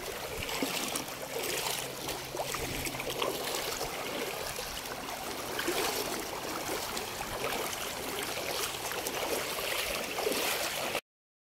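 Shallow stony river flowing and trickling over rocks, with splashes of feet wading through the water. The sound cuts out completely for a moment near the end.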